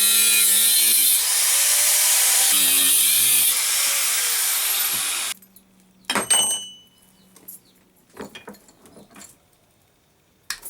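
A power tool cutting through the steel race of a large ball bearing, its motor pitch sagging under load, until it cuts off about five seconds in. A sharp metallic clank with a ringing tone follows, then a few light knocks.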